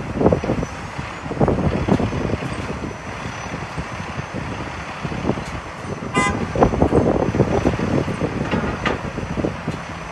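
Uneven gusty rumble of vehicle and outdoor noise, with one short horn toot about six seconds in.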